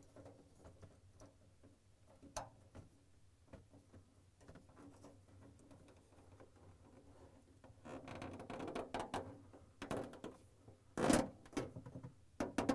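Plastic refrigerator freezer-grill parts being handled and snapped into place: the thermistor clipped onto the grill and the grill pushed on so its tabs lock. Faint rustling and scraping with a few sharp plastic clicks, the loudest near the end.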